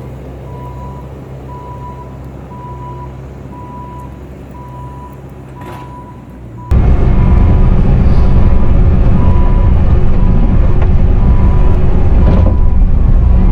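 Bobcat T650 compact track loader's diesel engine running, with its reverse alarm beeping at even spacing. About halfway through, the engine and track noise suddenly becomes much louder and heavier.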